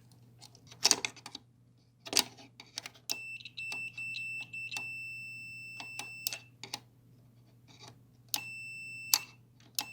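Multimeter continuity beeper sounding a steady high tone while a microwave door interlock microswitch is tested: the tone sputters on, holds for about three seconds, then cuts off with a click as the switch is worked, and sounds twice more. Sharp clicks of the switch and probes come between. The beep means the contacts are closed, and its stopping means they open; the switch is judged good.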